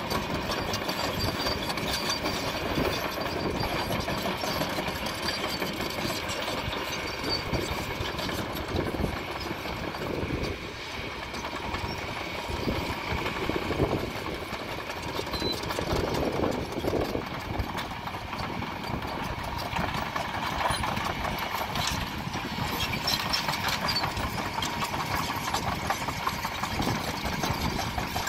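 Kobelco long-reach excavator's diesel engine running steadily as the machine works.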